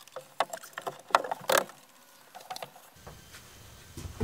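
Wooden kitchen countertop being lowered and set down onto a cabinet base: a string of light knocks and clunks of wood on wood, the loudest about a second and a half in, then quiet.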